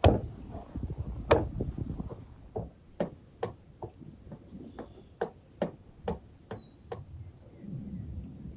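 A meat cleaver chopping through raw pork ribs on a wooden board, with two heavy chops in the first second and a half. It is followed by a run of lighter, sharp clicks about twice a second.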